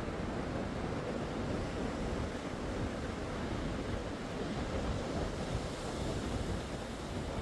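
Atlantic surf washing in steadily, with wind buffeting the microphone.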